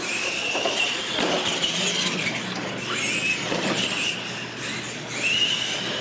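Electric radio-controlled monster trucks racing: a high motor-and-gear whine that rises as they launch, then eases and surges again twice as the throttle comes back on.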